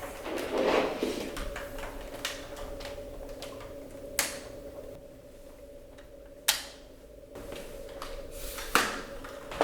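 Plastic parts of a Dyson Small Ball upright vacuum being handled and clicked into place: rustling and knocking, then three sharp clicks, a couple of seconds apart. A faint steady hum runs underneath.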